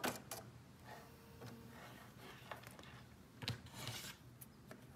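Faint rustling and handling noises of a stitched fabric appliqué flower being moved about on the sewing machine bed, with a soft click at the start and a short flurry of rustling about three and a half seconds in.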